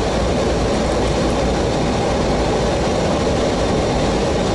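Steady cockpit noise of an airliner in flight: a constant rush of airflow and engine noise with no change in level.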